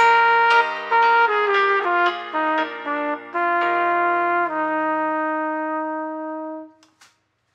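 Trumpet playing the closing phrase of a piece over lower sustained accompanying parts, moving through a few notes into a final chord that is held for about two seconds and stops just before the seven-second mark.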